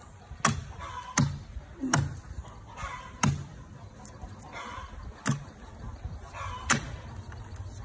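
A hatchet chopping into a rotten log: six strikes into soft, decayed wood, spaced unevenly at roughly one to two seconds apart.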